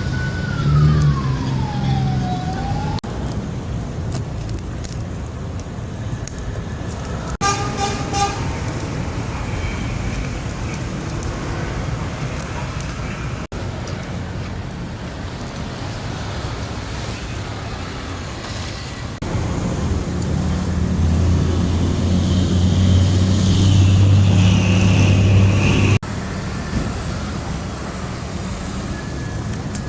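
A run of mechanical noise with road traffic behind it, cut into several short pieces. In the first two seconds a whine falls steadily in pitch, and from about 19 to 26 seconds a steady low hum grows loud, then stops abruptly.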